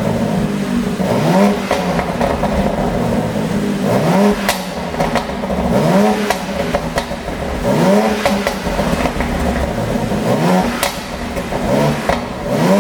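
BMW X4 M (F98) twin-turbo inline-six blipped about six times, a couple of seconds apart. Each rise in revs falls back with sharp pops and crackles from the exhaust, the sound of a pop-and-crackle tune.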